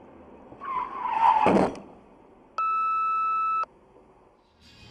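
A brief tyre squeal, sliding slightly down in pitch, ends in a thud about a second and a half in. About a second later a steady electronic beep sounds for about one second.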